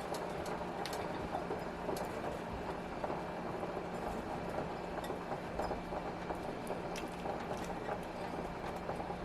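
Pot of ham hocks and soaked beans simmering on the stove: faint, scattered bubbling pops over a steady hiss and low hum.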